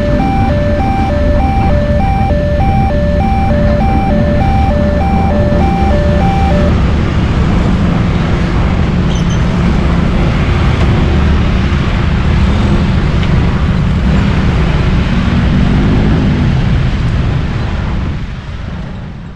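Electronic level-crossing warning bell (MP3-type siren) ringing a repeating two-note ding about twice a second, cutting off about a third of the way in. Under it runs a loud steady rumble of passing traffic, which fades away near the end.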